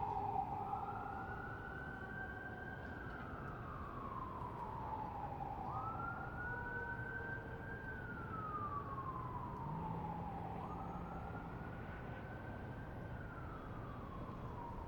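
Fire engine siren wailing in a slow cycle: the pitch rises quickly, holds, then falls slowly, three times about five seconds apart. Under it is a steady hum of city background noise.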